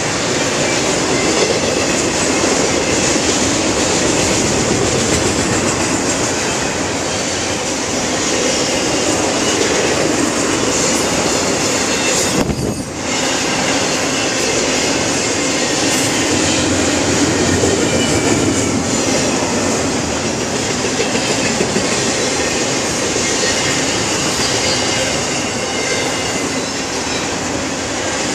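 Double-stack intermodal freight train's well cars rolling past, a loud steady rumble and clatter of steel wheels on rail, dipping briefly about halfway through.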